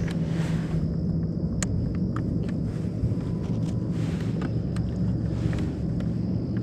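Steady low rumble with a constant low hum, with scattered light clicks and taps from a speckled trout being handled on a wet measuring board.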